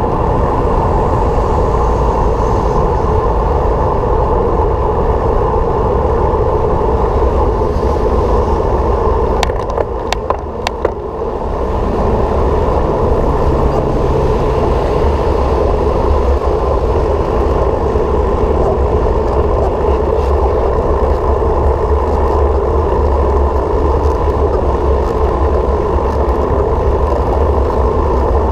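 Steady drone of wind and road noise from a vehicle riding along. There is a brief dip about ten seconds in, with a few sharp clicks.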